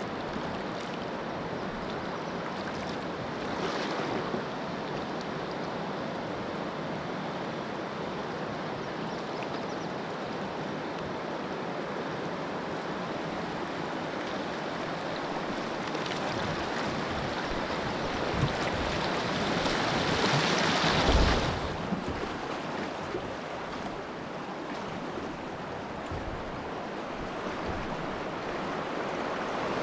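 Steady rushing of river water, with louder swells about four seconds in and again around twenty seconds in.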